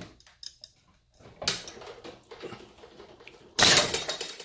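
Metal hook and pliers clicking and scraping under a hard pull on a hanging scale. About three and a half seconds in there is a loud sudden clatter as the hook bends and gives way under the load.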